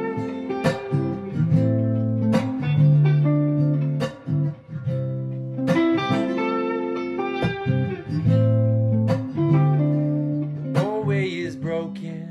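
Background music: the instrumental break of a guitar song, plucked guitar notes over a steady bass line, with a wavering note near the end.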